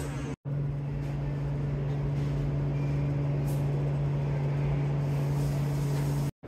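Steady low machine hum, broken by two brief silent gaps: one shortly after the start and one near the end.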